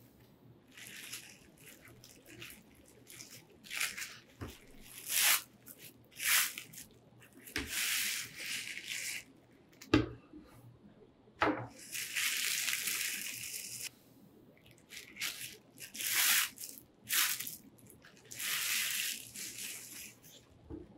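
Plastic bubble wrap rustling and crinkling in repeated bursts as it is pulled off a pair of recurve bow limbs, with two sharp clicks about ten and eleven and a half seconds in.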